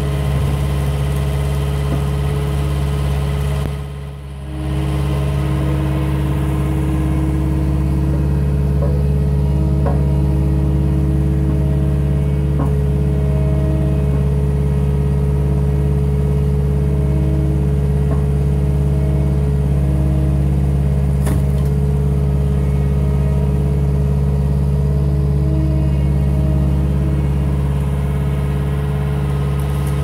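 Cat 262D skid steer's diesel engine running steadily under throttle, with a higher tone coming and going over it. It goes briefly quieter about four seconds in.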